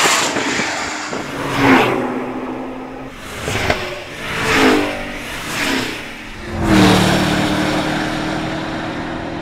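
Several cars passing one after another on a soaked race track, their tyres hissing through standing water and each engine note dropping in pitch as the car goes by.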